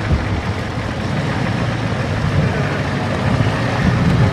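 Old Ford F-250's diesel engine idling steadily.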